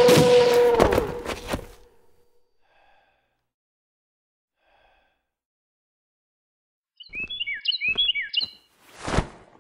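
Rapid gunfire, about five shots a second, over a steady held note, stopping about a second and a half in. Near the end, a few quick bird chirps, then a short whoosh.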